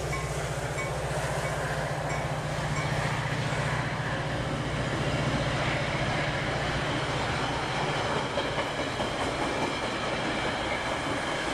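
Metra bilevel gallery passenger cars rolling past at speed: a steady rumble of steel wheels on the rails. The low rumble thins after about eight seconds as the last car, the cab car, goes by.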